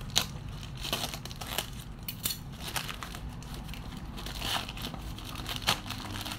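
Black plastic bag wrapping crinkling and crackling as it is cut open with scissors and pulled off a cardboard box, with a few sharper crackles, one right at the start and a louder one near the end.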